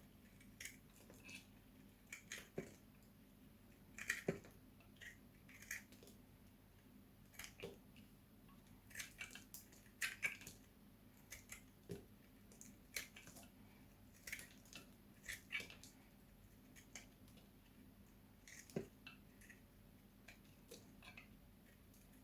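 Knife cutting into soap: a run of short, crisp crunches and clicks at an irregular pace, a few much sharper than the rest.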